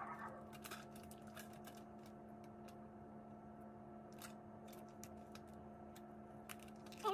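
Faint, scattered clicks and crackles of boiled crawfish shells being cracked and peeled apart by hand, over a steady low hum.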